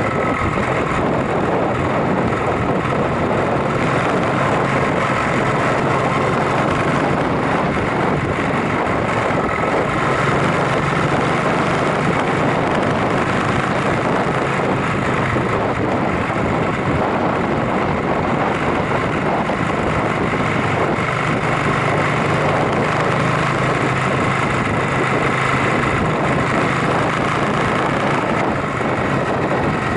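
Yamaha SRX400's single-cylinder four-stroke engine running steadily while riding, with wind noise on the microphone.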